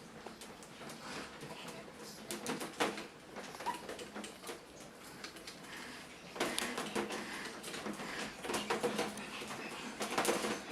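Chihuahua puppy moving about: light scattered taps and scuffles, busier in the second half.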